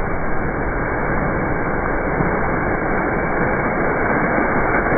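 Heavy ocean surf crashing on lava rocks: a loud, steady roar of breaking water and spray. It sounds muffled, with no high end.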